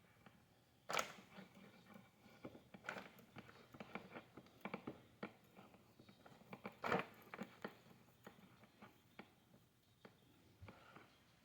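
Faint, irregular small clicks and rustles of hands working the untwisted, plastic-insulated wire pairs of a Cat 6 cable into colour order, with two louder sharp knocks about one second and seven seconds in.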